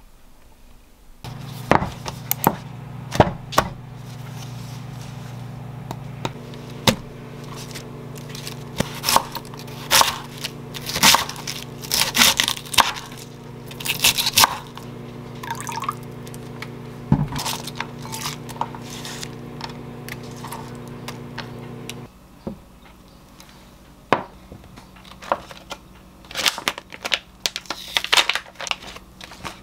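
A chef's knife chops cabbage on a wooden cutting board in quick, irregular strikes over a steady low hum, which cuts off suddenly about two-thirds of the way through. Near the end, a plastic food packet crinkles as it is torn open.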